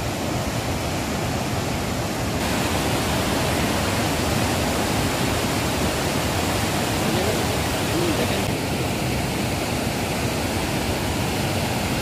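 Whitewater rapids of a boulder-strewn mountain river, rushing with a steady, dense roar of water. The tone brightens slightly about two seconds in and dulls a little past eight seconds.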